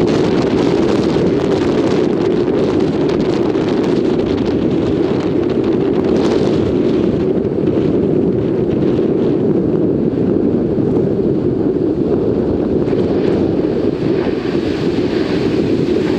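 Heavy wind buffeting the microphone: a loud, steady rushing noise.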